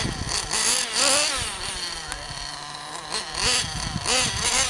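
Thunder Tiger MTA4 S50 Sledge Hammer RC monster truck's small nitro engine revving up and down in repeated bursts, its pitch rising and falling several times.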